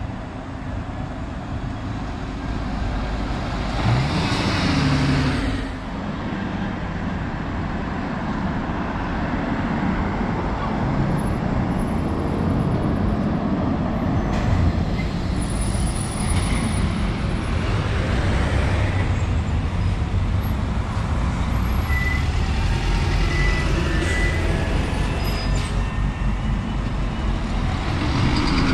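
City road traffic with coaches and a double-decker bus driving past close by, engines running and tyres on the road. There is a louder pass about four seconds in and another near the end.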